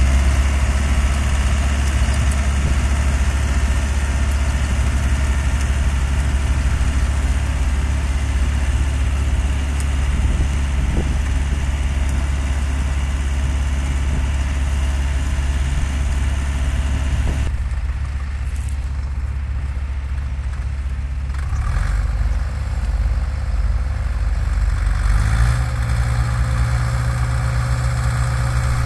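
Compact tractor's diesel engine running steadily under load while driving a rotary tiller through the soil, with a strong deep hum. The sound changes about two-thirds through, and near the end the engine note steps up in pitch.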